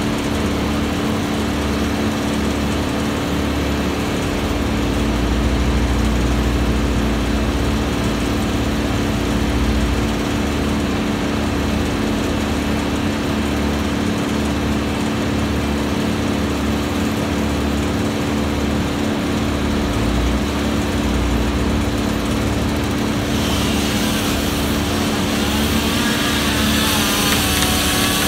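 Wood chipper's engine running steadily. Near the end a higher, harsher sound joins in over it.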